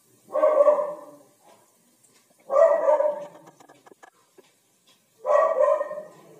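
A dog barking three times, each bark drawn out to about a second, roughly two and a half seconds apart. Faint crackling of frying oil runs between the barks.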